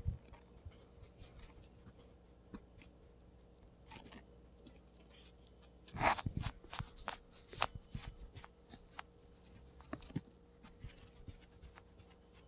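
A guinea pig eating fresh vegetables: scattered soft crunches and bites, with a burst of louder crunching about six seconds in and irregular chewing clicks after it.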